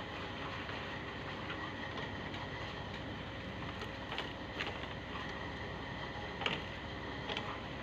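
Sewing machine running steadily while stitching shoe uppers, with a fast even whir and a few sharp clicks near the end.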